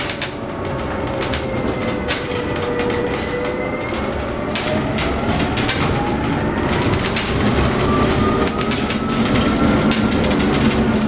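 Battery-electric drive of a 2015 Proterra Catalyst bus whining inside the cabin, its pitch dipping over the first few seconds as the bus eases off and then rising steadily as it speeds up. Under it are road noise and frequent clicks and rattles.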